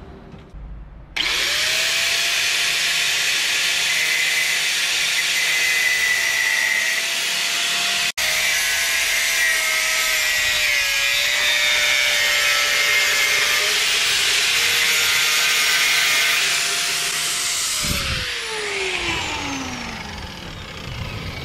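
Angle grinder cutting metal on a motorcycle engine, a steady high motor whine under the grinding. Near the end it is switched off and the whine falls as the disc spins down.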